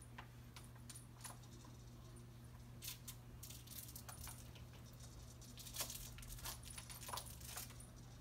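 Baby activity jumper rattling and clicking faintly as the baby bounces in it, with scattered light plastic clicks that come thickest in the second half, over a steady low hum.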